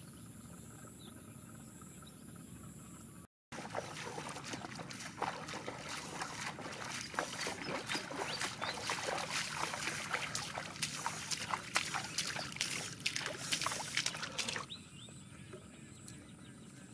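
Footsteps wading through shallow standing water: a quick, uneven run of splashes and sloshes from about three and a half seconds in, dying away to a faint steady hiss about two seconds before the end.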